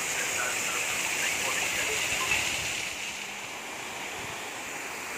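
Steady rush of a waterfall, water pouring down a rock face; the sound turns slightly quieter about three seconds in.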